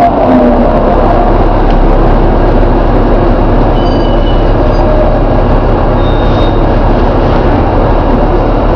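Volvo B7TL double-decker bus running, a loud steady mix of engine and road noise. A falling whine trails off just at the start, and brief faint high squeaks come around four and six seconds in.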